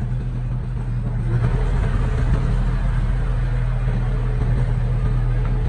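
Diesel engine of heavy earthmoving equipment running steadily under load, growing louder about a second in.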